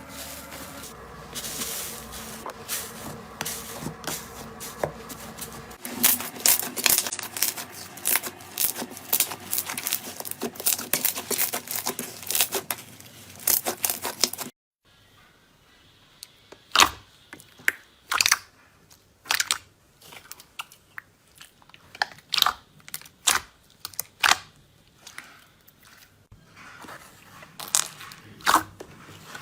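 Slime worked by hand, giving off dense crackling clicks and snaps. After an abrupt cut about halfway, it gives only scattered single pops.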